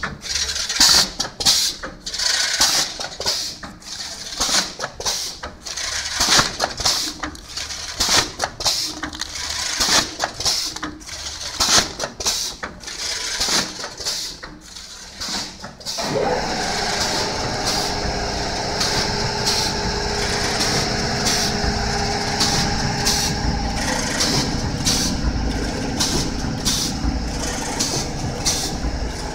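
Vertical bag-packing machine running, with rapid repeated clacking and clicking from its mechanism for about the first half. It then changes abruptly to a steady mechanical hum with a few held tones.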